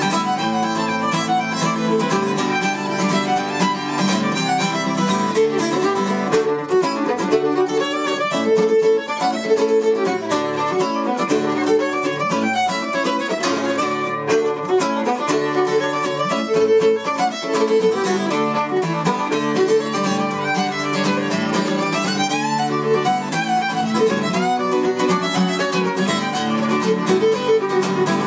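Fiddle and steel-string acoustic guitar playing a Celtic reel together, the fiddle carrying the melody over a strummed guitar accompaniment.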